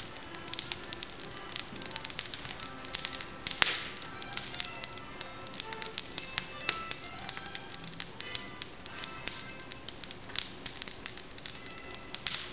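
Fire crackling and popping in a fireplace, with irregular sharp pops throughout, over soft background music.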